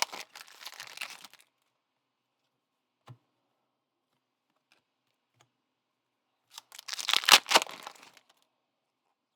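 Plastic wrapper of a trading card pack being torn open and crinkled, in two rustling bouts: one at the start and a louder one about seven seconds in, with a few faint ticks between.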